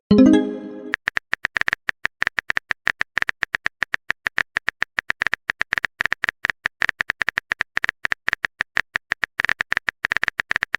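Phone keyboard typing sound effect: a fast, steady run of clicks. It opens with a short pitched message-alert tone lasting under a second.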